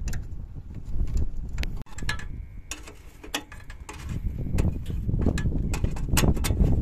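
Irregular metallic clicks and clinks of hand tools and engine parts being handled during engine reassembly, over a steady low rumble; the sound cuts off abruptly for a moment just under two seconds in.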